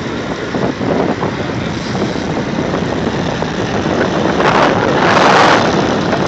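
Wind rushing over the microphone of a camera carried on a moving road bicycle, a steady noise with a louder gust about five seconds in.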